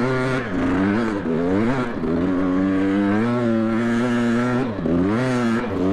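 KTM 300 XC TPI two-stroke dirt bike engine being ridden, its revs rising and falling several times with the throttle. The revs hold fairly steady for a couple of seconds in the middle and dip about two seconds in and again near five seconds.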